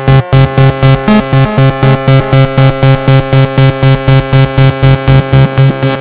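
Doepfer analog modular synthesizer playing a fast sequence of repeated pulsed notes, about four a second, mostly on one low pitch with bright, buzzy overtones.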